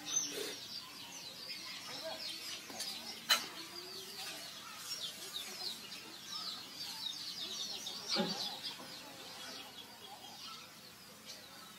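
Many birds chirping continuously, high and busy, with one sharp click about three seconds in.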